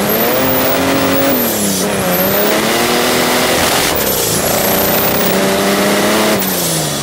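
Mercedes OM606 turbo-diesel straight-six in a BMW E28 pulling hard under load, its note climbing and then dropping about a second and a half in, again about four seconds in, and near the end, with a loud rush of wind and road noise over it.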